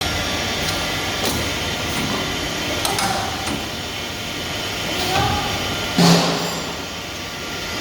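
Metalworking machinery running with a steady hum, with scattered sharp metal clicks and knocks as flat iron coil is handled and welded. One louder metal clang about six seconds in rings briefly.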